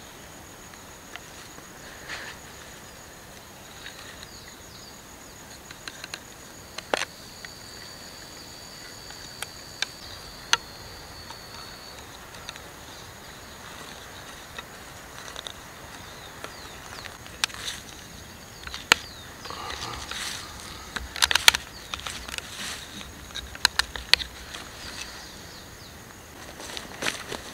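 Wooden tripod poles and cord being handled on dry pine-needle litter: scattered light clicks and knocks, with a denser stretch of rustling and clicking about two-thirds of the way through. A steady high insect drone runs underneath.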